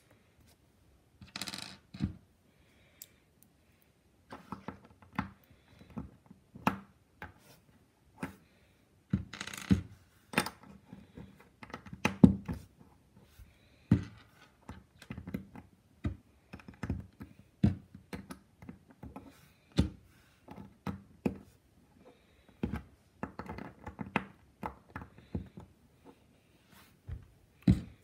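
Lego bricks being handled and pressed together: irregular small plastic clicks and knocks, some in quick clusters, with short pauses between.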